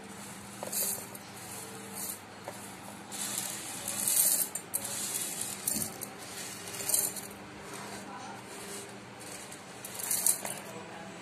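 Dry chana dal, lentils, almonds and whole spices poured by hand into a stainless steel mixer-grinder jar, the grains rattling against the metal in several pours, the longest about four seconds in.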